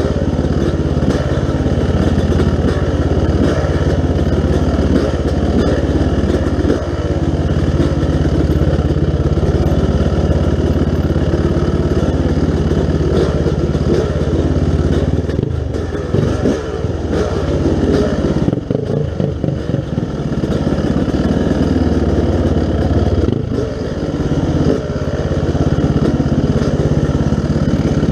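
Dirt bike engine running under steady throttle while riding, with the throttle eased off and picked up again a couple of times in the second half.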